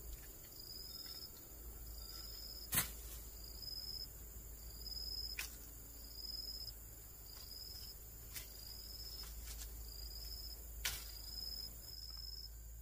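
An insect chirping: a short, high note rising slightly in pitch, repeated about once a second over a steady high insect whine. A few sharp clicks cut across it, the loudest about three seconds in.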